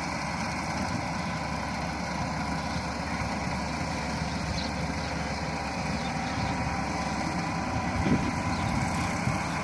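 Rice combine harvester's engine running steadily, with a slight swell in loudness about eight seconds in.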